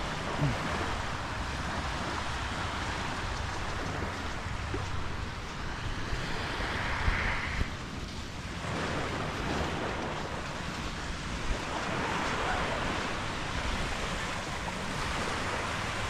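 Small waves washing up a sand beach, swelling into louder washes about six seconds in and again near twelve seconds, with wind rumbling on the microphone.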